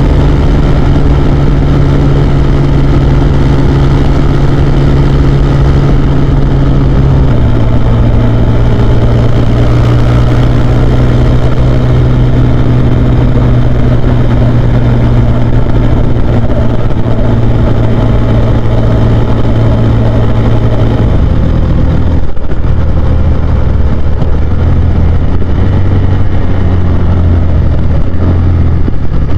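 Husqvarna Svartpilen 401's single-cylinder four-stroke engine running under way at a steady pace. Its pitch drops in a step about seven seconds in, drops again after about twenty seconds and then wavers up and down.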